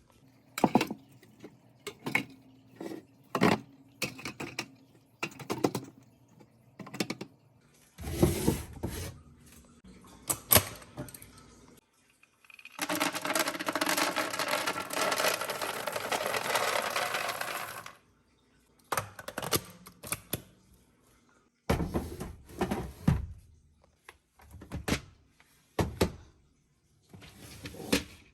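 Plastic storage containers, lids and jars clicking and knocking as pantry groceries are handled and sorted. About halfway through there is a steady rushing noise lasting about five seconds.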